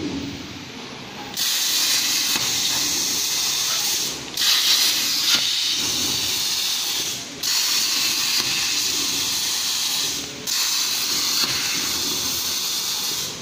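CNC plasma cutting torch hissing as its arc cuts steel plate. The hiss starts about a second and a half in, runs in stretches of roughly three seconds, and cuts out briefly three times between cuts.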